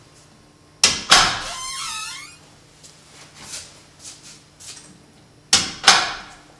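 Apartment front door being handled: two sharp latch clicks about a second in, followed by a short wavering, falling squeak. Near the end come two more sharp clicks.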